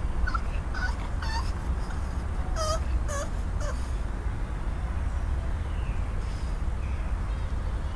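A dog whimpering: a run of short, high, squeaky whines in the first four seconds, over a steady low rumble.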